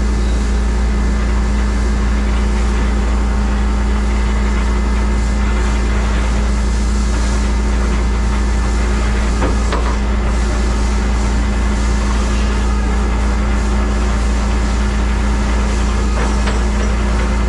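Rollback tow truck's engine running steadily with a constant low hum as its winch lets a chained mini truck roll down the tilted bed, with a couple of light clunks about halfway through.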